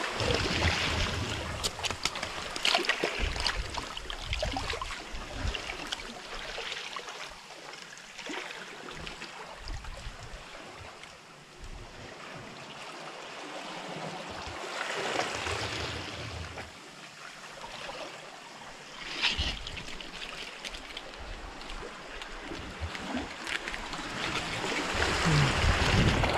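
Sea water washing and splashing among shoreline rocks, swelling and fading in irregular surges.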